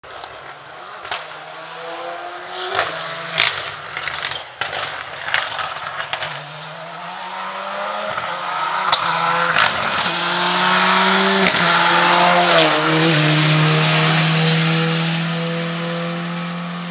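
Rally car engine approaching at speed, revs climbing and dropping back through several gear changes, with sharp bangs mostly in the first half. It grows louder to a peak about two-thirds of the way through, then holds a steadier note as it fades, and the sound cuts off suddenly at the end.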